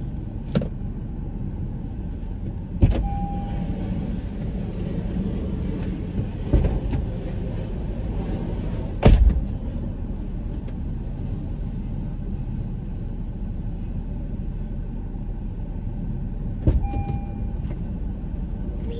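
Car idling, heard from inside the cabin as a steady low rumble, broken by several clunks and thumps as the car doors open and shut. The loudest thump comes about nine seconds in, and a short beep follows the thumps near three seconds and again near seventeen seconds.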